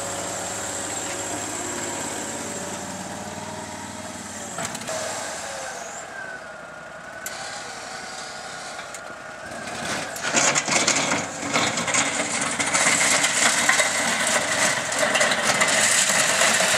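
Argo 650 Frontier 6x6's engine running as the machine drives and pushes snow with its front plow. About ten seconds in the sound gets louder and harsher, with rapid crackling over the engine.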